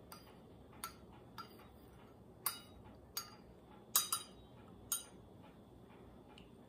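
Metal teaspoon clinking against a porcelain teacup while stirring honey into tea: about nine light clinks at uneven intervals, two of the loudest close together about four seconds in.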